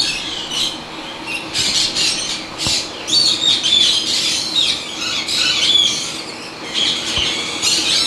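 Parrots squawking and screeching, many short harsh calls overlapping one another without pause, over a faint steady hum.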